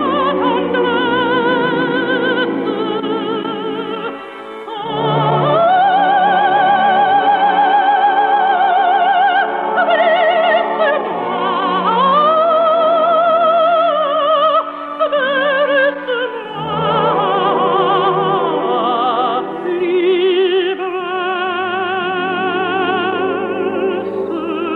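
Operatic singing with strong vibrato in long held phrases over a studio orchestra, with a short break about four seconds in. It comes from a 1952 radio broadcast recording with limited treble.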